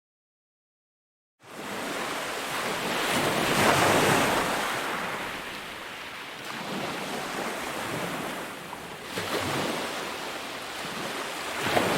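Total silence for about the first second and a half, then ocean surf washing in, swelling to its loudest about four seconds in, easing off, and building again towards the end.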